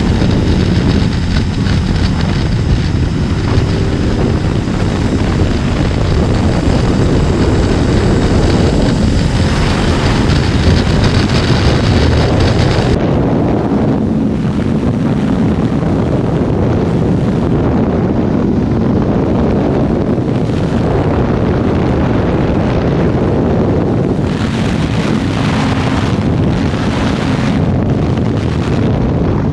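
Wind rushing over the microphone of a Honda CB500X at road speed, with the bike's parallel-twin engine note faint beneath it. The sound changes abruptly about 13 seconds in, where the footage is cut.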